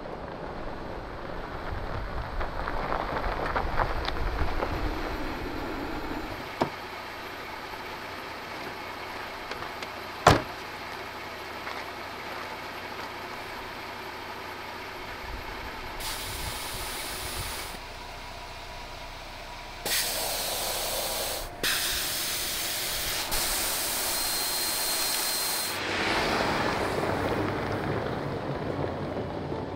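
Jeep Gladiator Rubicon tyres running on gravel as it approaches. About ten seconds in there is one sharp click. It is followed by three bursts of loud air hissing out of a tyre valve as a tyre is aired down, the last burst lasting about four seconds. Near the end comes the rumble of the Jeep pulling away on gravel.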